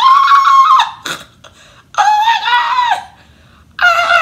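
A woman's high-pitched wordless wailing cries of dismay: two long held squeals about a second apart, and a third starting near the end.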